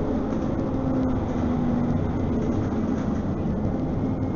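Interior running noise of a CAF Urbos 3 tram travelling at speed: a steady rumble with a faint hum.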